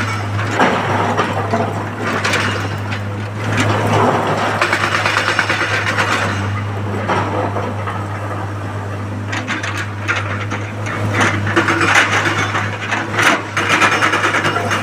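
Excavator at work: a steady diesel engine hum, with repeated swells of scraping and clattering as rock and earth are dug and handled.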